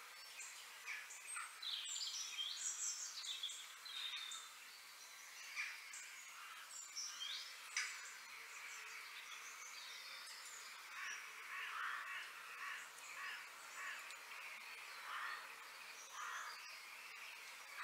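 Outdoor birdsong: many short chirps and sliding calls in the first half, then a run of repeated harsher calls in the second half. A single sharp knock comes about eight seconds in.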